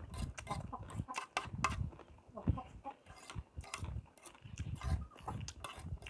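Close-up chewing of a mouthful of food, wet smacking with irregular crunchy bites.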